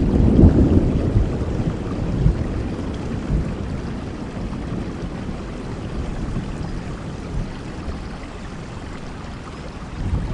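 Steady rain with a roll of thunder that rumbles low and fades away over the first few seconds, leaving the even hiss of rain.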